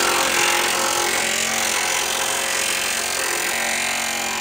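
Handheld power tool running steadily at a constant speed, working at the spray-foam insulation on a steel bunker seam.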